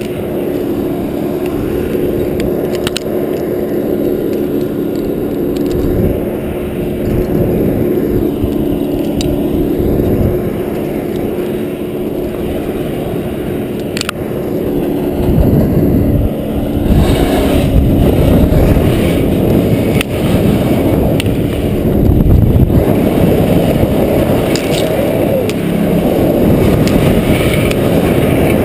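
An engine running steadily with a low hum, under scraping, rubbing and clicks of climbing gear against the bark. About halfway through, the low rumble grows louder and rougher.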